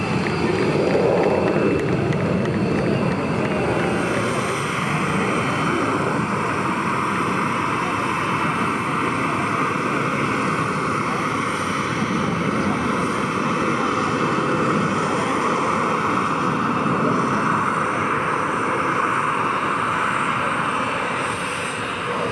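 Eurofighter Typhoon's twin EJ200 turbofan engines: steady jet noise from a fighter in flight, with no clear rise or fall.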